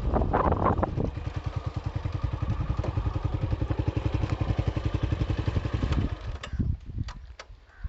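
Honda CB125 motorcycle engine idling with a steady, even beat, which stops about six seconds in; a few sharp clicks follow.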